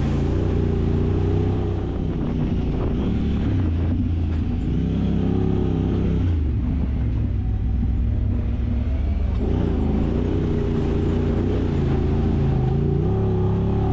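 Side-by-side UTV engine running on the trail, its pitch falling and rising as the throttle comes off and on, with a clear rise in revs about two-thirds of the way through.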